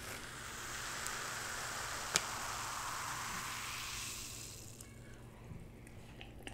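Carbonated diet ginger ale fizzing in a plastic cup held close to the microphone: a steady hiss of popping bubbles that fades out about four and a half seconds in, with one sharp click about two seconds in.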